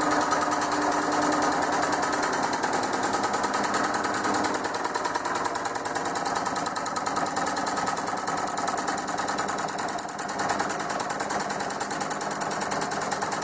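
Steel-framed homemade scroll saw, driven by an electric lawn mower motor, running with its blade moving up and down and not cutting. The mechanism makes a fast, even, steady rattle.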